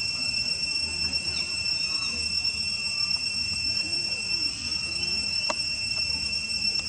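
Steady, high-pitched insect drone: one unbroken tone with a higher overtone above it, over a faint low rumble. A single sharp click comes about five and a half seconds in.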